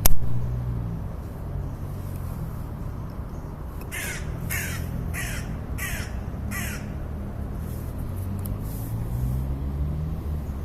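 A crow cawing five times in quick succession, about four seconds in, over a steady low rumble. A sharp click at the very start is the loudest sound.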